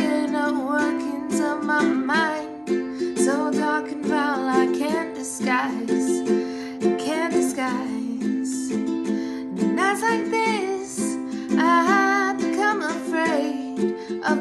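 A woman singing to her own ukulele, strumming chords steadily in a small room.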